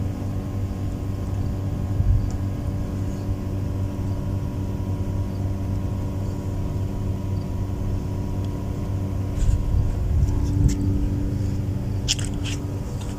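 Steady low machine hum with a constant pitch, with a few light clicks near the end.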